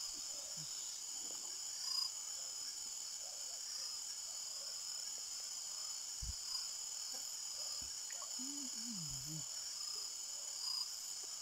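Steady, high-pitched night chorus of insects, crickets among them, with a faint voice heard briefly a little past the middle.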